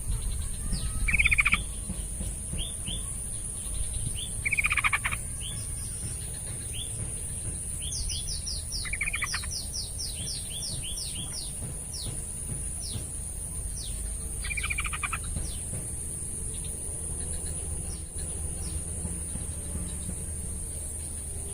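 Sooty-headed bulbul (trucukan) singing: short bubbly phrases every few seconds, with a quick run of high downward-sweeping notes in the middle. A steady high-pitched tone runs underneath throughout.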